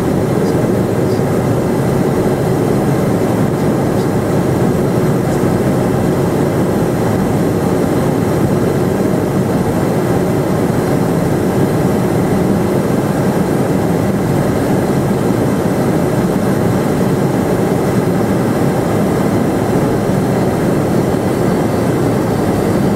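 Steady cabin noise of an Eclipse 500 very light jet in flight, heard from inside the cockpit: the even hum of its twin Pratt & Whitney PW610F turbofans blended with airflow rush, with a faint steady tone running through it.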